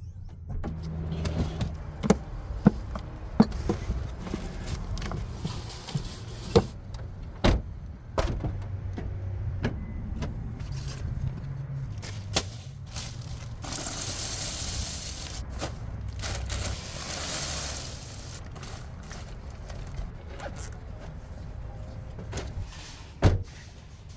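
A car engine running with a steady low rumble, with scattered clicks, knocks and rattles, and a rushing hiss for a few seconds in the middle.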